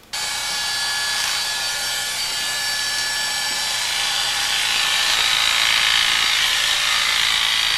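Electric hair clippers running steadily, buzzing as they cut through a woman's bob at the side of her head.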